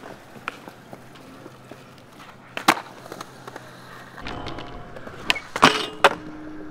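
Skateboard on a concrete skatepark: a sharp clack of the board, then wheels rolling and a quick run of three loud clacks near the end, followed by a steady ringing tone as the board grinds the metal handrail.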